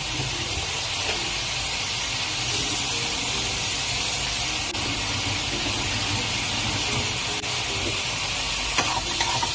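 Diced chicken frying in butter in a pan, a steady sizzle, with a few light knocks near the end.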